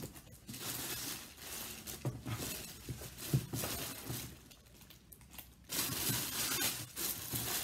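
Packaging being handled and torn open by hand, crinkling and tearing in uneven bursts. It goes quieter for a moment about two-thirds through, then louder again near the end.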